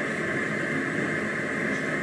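Steady, even hiss-like noise with no distinct strokes or changes.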